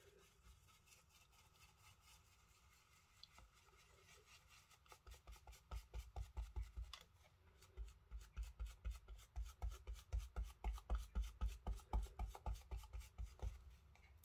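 Ink-blending brush scrubbed back and forth over card: faint at first, then from about five seconds in a fast, even scrubbing of about four strokes a second, each with a dull thud on the work surface.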